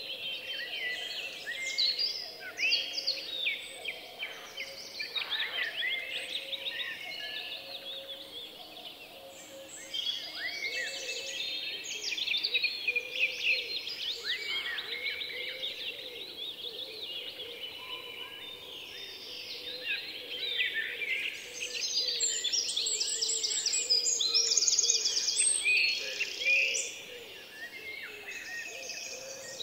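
Chorus of songbirds chirping and trilling, many quick overlapping calls throughout. It is busiest a little past the middle, with a rapid run of high notes.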